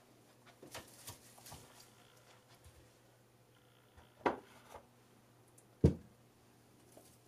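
Light rustling of small plastic bags and handling, then two knocks as bagged herb pots are set down on a windowsill, the second knock the louder and deeper.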